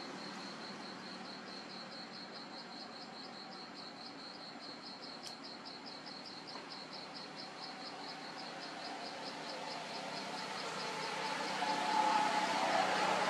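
An insect calling in a steady high pulsing trill, about five pulses a second. Near the end a broader rushing noise swells and becomes the loudest sound.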